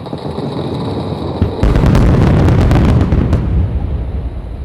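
A massive finale barrage of aerial firework shells bursting together. Continuous low booming rises to a loud dense stretch of many sharp reports between about one and a half and three and a half seconds in, then a rolling rumble fades out.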